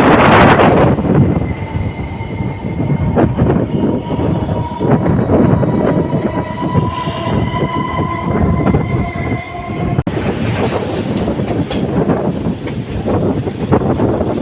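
Indian Railways electric multiple unit train running on the track, with scattered wheel clicks. For several seconds a long, steady, high tone sounds over it and then stops, about two-thirds of the way through.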